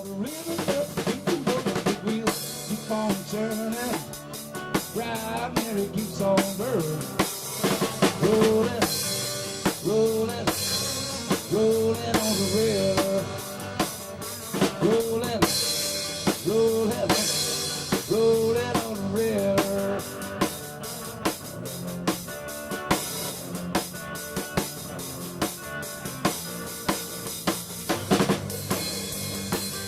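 Instrumental band music: a drum kit keeps a steady beat under a sliding melody line.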